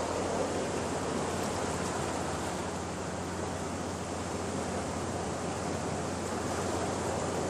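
Sea surf: small waves breaking and washing among rocks along the shore, a steady rushing noise.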